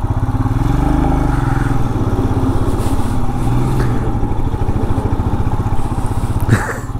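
Royal Enfield motorcycle engine running steadily while riding, a continuous rapid exhaust beat. A brief falling tone comes near the end.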